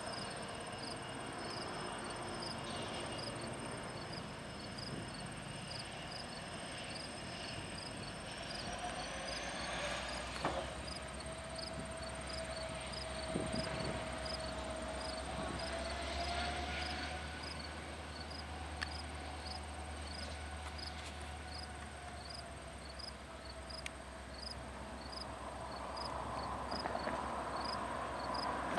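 Insects chirping in a steady, even pulse, over the low rumble of a slow-moving diesel locomotive and train. The rumble swells through the middle, with a few light knocks.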